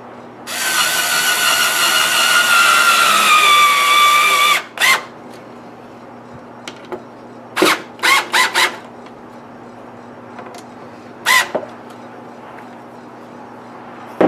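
Power drill driving screws into oak: one long run of about four seconds whose whine drops in pitch as the motor slows under load, then several short bursts to finish tightening.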